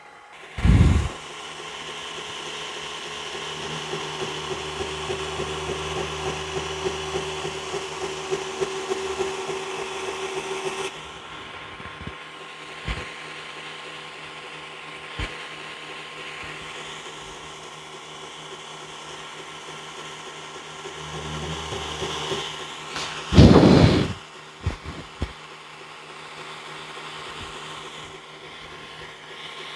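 2x72 belt grinder running steadily, with a knife handle pressed against the belt in a longer grinding pass from a few seconds in to about eleven seconds and again briefly near the two-thirds mark. A loud knock comes about a second in, and a louder one a little after that second pass.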